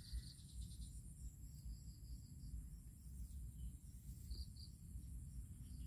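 Faint insects trilling steadily at a high pitch, with a few short chirps scattered through and a low rumble underneath.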